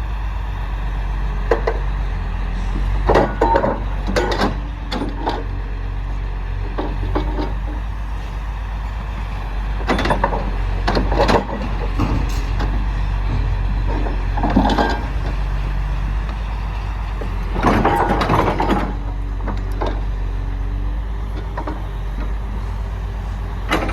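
CAT 349D2L excavator's diesel engine running with a steady deep drone, over which metallic clanks and squeaks come in clusters: a few seconds in, around ten seconds in, and loudest around eighteen seconds in.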